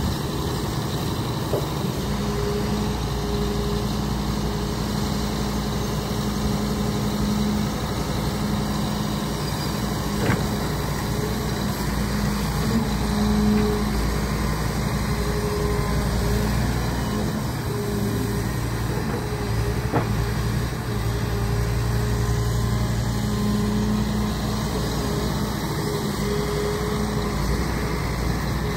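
Heavy construction machinery's engine running steadily with a low hum. There are brief clicks about ten and twenty seconds in.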